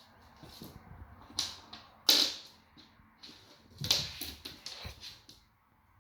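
A golden retriever puppy chewing and knocking about an ice cube: a string of sharp crunches and clacks. The loudest comes about two seconds in, followed by a quick cluster about four seconds in.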